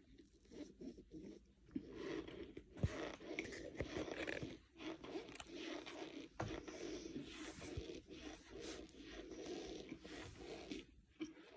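Cornstarch powder being pressed and squeezed, giving a dense run of irregular crunches and squeaks. It starts about a second and a half in, has a sharp louder crack near three seconds, and pauses briefly near the end.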